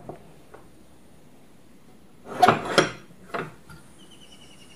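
Long iron sliding bolt on an old wooden door worked by hand: a few light clicks, then a cluster of loud metal clanks and knocks about two and a half seconds in and one more shortly after, as the bolt is drawn back and the door pulled open.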